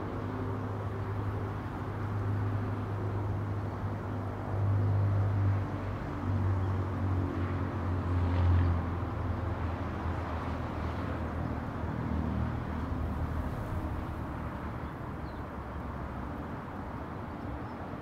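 Steady distant road traffic with wind, a low engine rumble that swells louder twice as vehicles pass, about five and eight seconds in.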